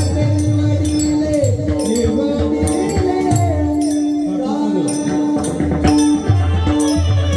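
Marathi devotional singing: a man's voice holding long, high, gliding notes over a steady held drone, with low drum beats and jingling percussion strokes.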